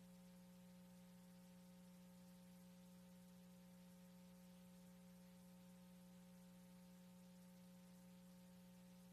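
Near silence: a faint, steady electrical hum with a low hiss.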